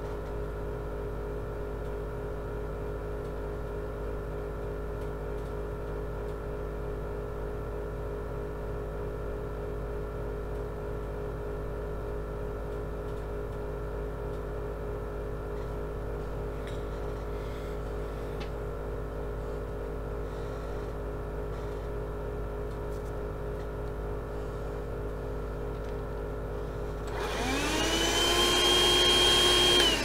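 A steady background hum with several constant tones throughout. Near the end a Dirt Devil Scorpion cordless hand vacuum is switched on: its motor whine rises quickly to a steady pitch, runs for about three seconds, then winds down as it is switched off.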